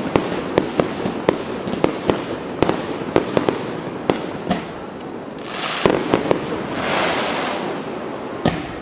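Aerial fireworks going off: a quick run of sharp bangs as shells burst, then a long rushing hiss about halfway through, with a few more bangs near the end.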